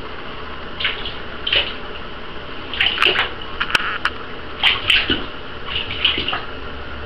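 Water splashing in a bathtub as pet rats swim and paddle: a series of short, irregular splashes, with a few sharp clicks, over a steady background hum.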